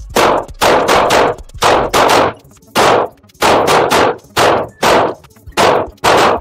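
Smith & Wesson M&P 2.0 semi-automatic pistol fired in a quick string of about a dozen shots, roughly two a second. Each shot echoes briefly inside an indoor range booth. The string stops near the end.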